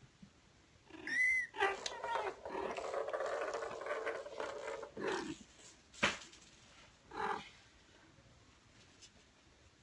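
Cats calling: a short high rising-and-falling meow about a second in, then a long, lower, drawn-out call lasting a few seconds. A sharp knock comes around six seconds, followed by another short call.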